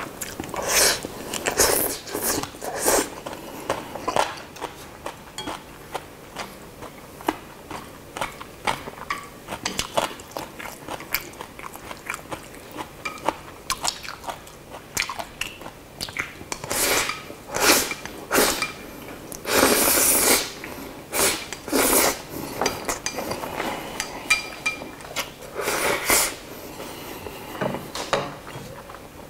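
Close-miked eating of Chapagetti black-bean instant noodles: slurping noodles off chopsticks and wet chewing, in many short irregular bursts, with a longer burst about twenty seconds in.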